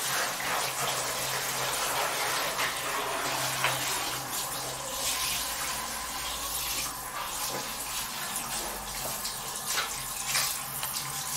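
Handheld shower head running, its water spraying and splashing onto shoes and a wet tiled floor in a steady hiss that swells and dips.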